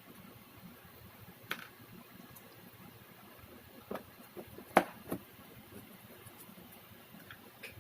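A few scattered sharp clicks and knocks, the loudest a little under five seconds in, over a faint room hiss.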